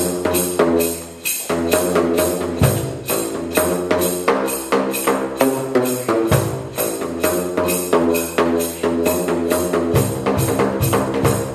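A home-made drain-pipe instrument, its tuned plastic pipes slapped with flip-flops, playing a tune in a quick, steady rhythm of pitched pops. Underneath runs a sustained bass line that changes note about every three and a half seconds.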